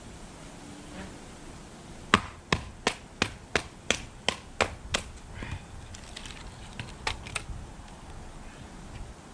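A hatchet chopping kindling: a quick run of about nine sharp chops, about three a second, then a short pause and three more.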